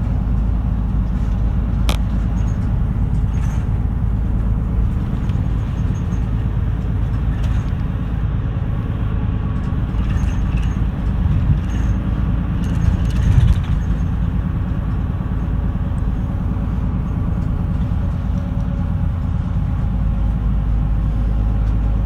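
Route bus driving along, heard from inside the cabin: a steady engine and road rumble, with a sharp click about two seconds in and a few bumps and rattles near the middle.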